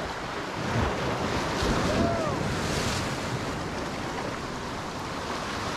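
Sea waves breaking and washing over the rocks of a breakwater, swelling louder about one to three seconds in, with wind rumbling on the microphone.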